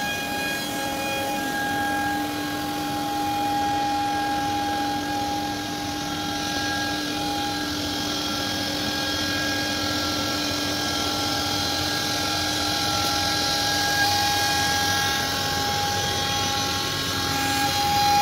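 CNC panel router's spindles running with a steady high whine over a rushing hiss as it cuts a white laminated board.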